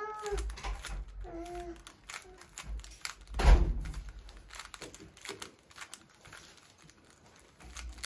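Plastic Rubik's cube being turned by hand, its layers clicking in quick, irregular turns. A short cry rising then falling in pitch comes right at the start and again about a second and a half in, and the loudest sound is a thump about three and a half seconds in.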